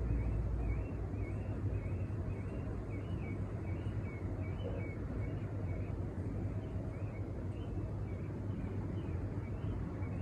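A steady low rumble with a string of short, high, wavering chirps repeating over it.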